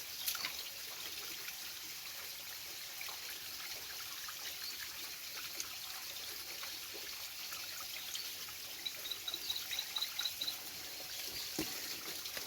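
Spring water trickling and running steadily, with small splashy clicks; near the end a short run of about eight high-pitched ticks sounds over it.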